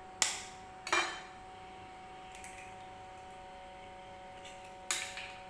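An egg being cracked: two sharp taps against the rim of a dish about a second apart. One more clink of kitchenware near the end.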